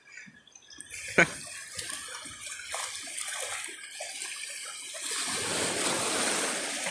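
Splashing and sloshing in shallow seawater, with a single sharp click about a second in. From about five seconds in, a steady rushing wash of water.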